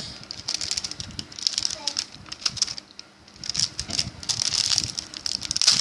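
Plastic snack packet of crispy seaweed crinkling and crackling as hands struggle to tear it open.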